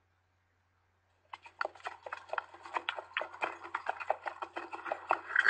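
Horse hooves clip-clopping at a walk, a quick irregular run of knocks, as a recorded sound effect. A horse's whinny breaks in right at the end.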